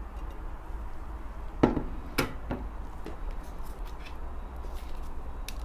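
A glass mixing bowl being handled and set down beside a stainless steel pot: a few sharp knocks and clinks about a second and a half to three seconds in, the first two loudest and briefly ringing, over a steady low hum.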